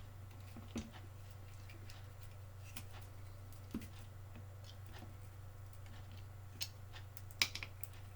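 A few sparse, light clicks and taps of small tools and parts being handled during soldering work, the sharpest near the end, over a steady low hum.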